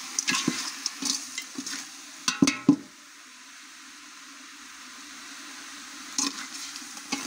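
Chicken pieces sizzling in a metal pot while a steel spoon stirs and scrapes against the pot, with a few sharp scrapes and knocks about two and a half seconds in. The stirring pauses for a few seconds, leaving the steady sizzle, then resumes near the end.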